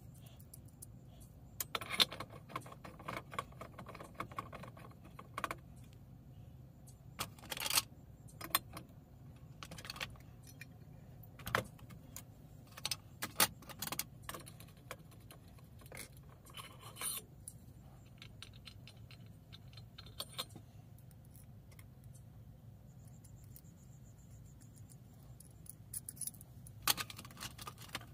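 Small metal tools and parts clinking and scraping against a Coleman 508 camp stove's steel body and pump tube as its check valve is fitted, in scattered bursts of clicks over a low steady hum.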